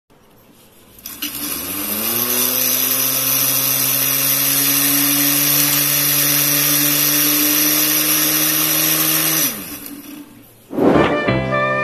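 Rewound 545 brushed DC motor with a double shaft, a plastic propeller on one end and a small gear on the other, spinning up about a second in with a rising whine and rush of air, running steadily, then winding down with a falling pitch. Music starts near the end.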